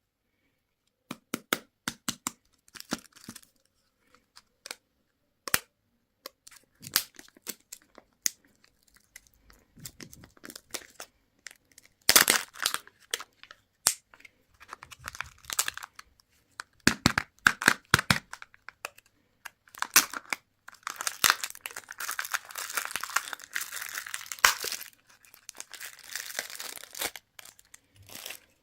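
Candy and toy packaging being unwrapped by hand: plastic wrappers crinkling, cracking and tearing in a run of sharp crackles, with a longer stretch of steady crinkling and tearing about two-thirds of the way through.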